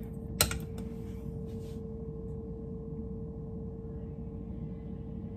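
A single sharp knock about half a second in, then a steady low hum with a faint steady tone.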